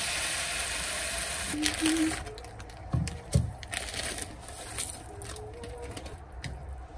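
Water pouring from a pull-out kitchen faucet into a frying pan for about two seconds, then cut off. Then an instant-noodle packet crinkles and a couple of dull thumps sound as the dry noodle block is dropped into the water in the pan.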